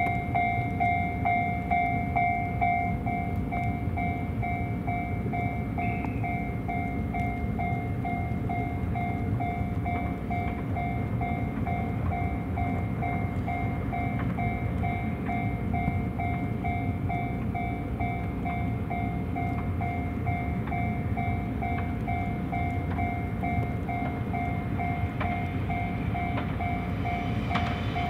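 A railway level-crossing alarm rings in a steady repeating pulse over a low rumble as a 381 series electric limited express approaches through snow; near the end the train draws close and sharp wheel clicks on the rails begin.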